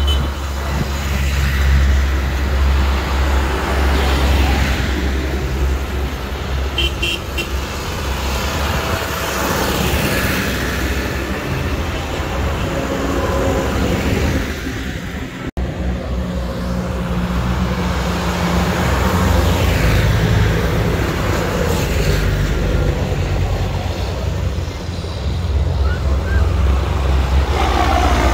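Diesel engines of a line of farm tractors running as they drive past one after another.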